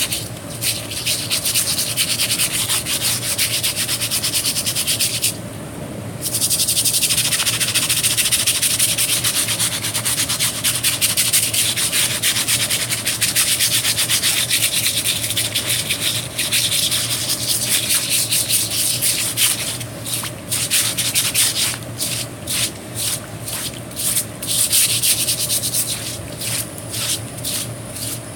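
Wire brush scrubbing a wet, burned wooden board with rapid scratchy back-and-forth strokes, scouring the carbon out of Lichtenberg burn channels. It stops briefly about five seconds in; from about two-thirds of the way through it comes in separate short strokes.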